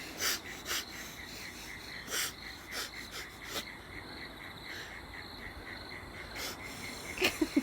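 A person sniffing and breathing sharply through the nose in short, irregular strokes, nose burning from snorted pepper; the sniffs come in a cluster, pause for a few seconds, then resume near the end.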